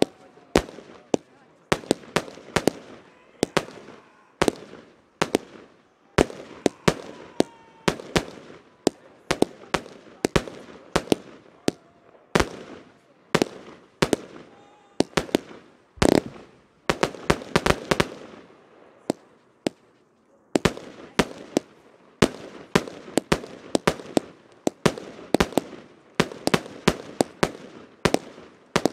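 Fireworks display: a fast, irregular run of loud bangs from bursting shells, often several in quick succession, with crackling in between and a short lull about two-thirds of the way through.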